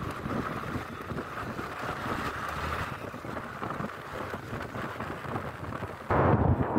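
Wind rushing over the phone microphone with a steady vehicle rumble beneath, from a moving vehicle; the noise jumps suddenly louder near the end.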